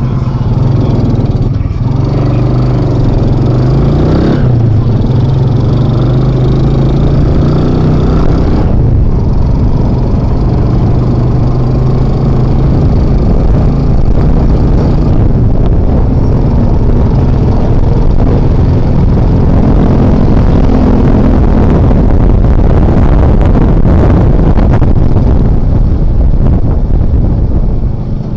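Motorcycle engine of a Philippine tricycle (motorcycle with sidecar) running under way, heard from on board, its pitch rising briefly as it speeds up about three to four seconds in, over steady road noise.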